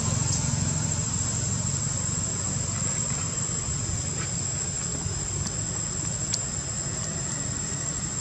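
Outdoor ambience: a steady high-pitched insect drone over a constant low rumble, with a few faint ticks.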